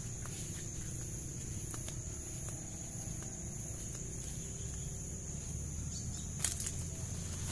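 Insects chirring in a steady, high, even drone over a low rumble, with one short knock near the end.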